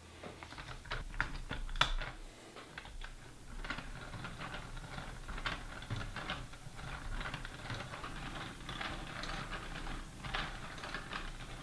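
Plastic LEGO Technic parts clicking and rattling as they are handled and connected on a geared mechanism: a steady run of small clicks, with a sharper click a little under two seconds in.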